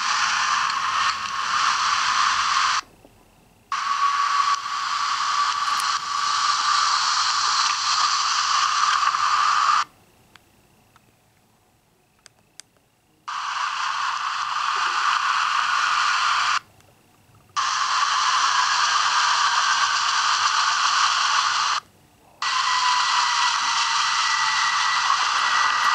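Loud, tinny static-like hiss with no low end. It cuts out abruptly four times, once for about three seconds.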